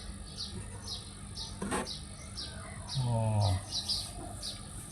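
A bird chirping over and over, short high falling chirps about twice a second, over a steady high hiss. A sharp click comes at about two seconds in, and a voice makes a short sound just after the middle.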